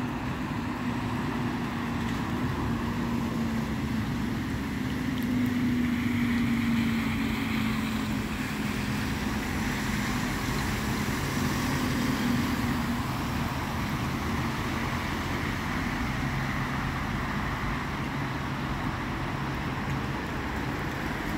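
Steady road traffic noise: passing cars and buses on a wet street. A low engine hum stands out for the first dozen seconds, slowly dropping a little in pitch, then fades into the general traffic.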